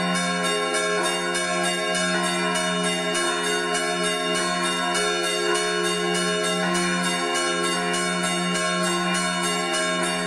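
Church bells in a festive noon peal: the big F3 bell swings and tolls with a deep hum that swells and fades every couple of seconds. Over it, hammers strike the smaller fixed C4 and E4 bells in a quick, even chime of about three strikes a second.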